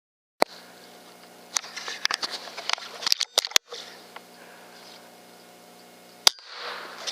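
Sharp clicks and rustling handling noise over a steady low electronic hum, with one loud crack about six seconds in.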